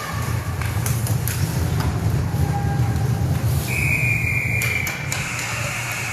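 Ice-hockey rink sound: a heavy low rumble with scattered sharp clacks of sticks and puck. About two-thirds of the way in, a single steady high-pitched tone starts and holds, the rink's buzzer sounding.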